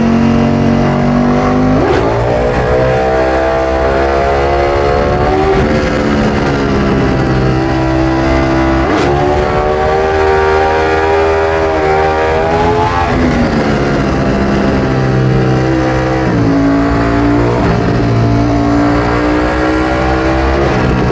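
Ducati Streetfighter V4S's 1103 cc Desmosedici Stradale V4 engine through an Akrapovic exhaust, running hard as the bike rides. Its pitch climbs and then drops several times as it goes through the gears.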